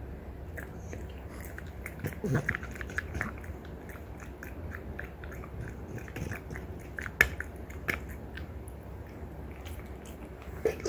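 A French bulldog gnawing on a deer antler: irregular hard clicks and scrapes of teeth on antler, with one sharper crack about seven seconds in.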